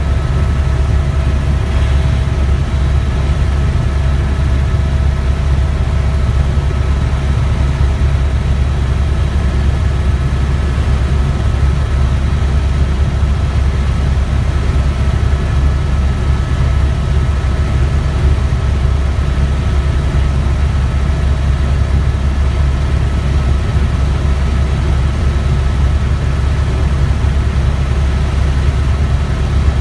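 Helicopter in flight heard from inside the cabin: a loud, steady low drone of rotor and engine, with a few faint, steady whining tones above it.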